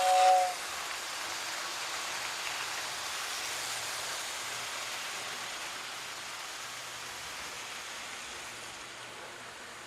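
Kids' toy train sound effect: a short two-note whistle toot cuts off just after the start, then a steady steam-like hiss that slowly fades away.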